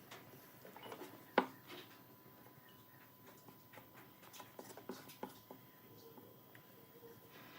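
Scattered light clicks and knocks of small wooden pieces being handled, with one sharper knock about a second and a half in and a few more near the middle.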